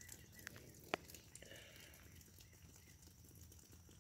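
Near silence, broken by a few faint clicks, the sharpest about a second in.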